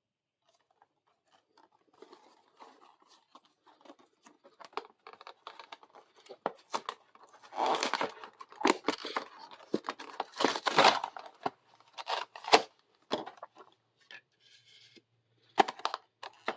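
Toy packaging being torn open and handled: irregular tearing and crinkling of cardboard and plastic, loudest about eight and eleven seconds in.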